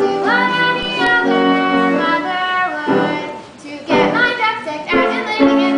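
Young voices singing a sung number from a stage musical over instrumental accompaniment, with held notes and a short break between phrases about three and a half seconds in.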